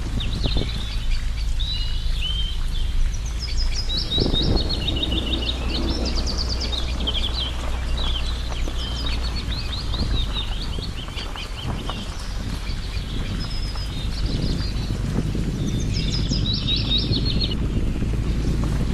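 Several small songbirds chirping and singing rapid, high trills, one after another, over a steady low rumble.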